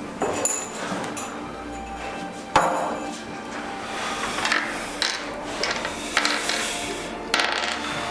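A series of sharp knocks on a table, the loudest about two and a half seconds in, over background music.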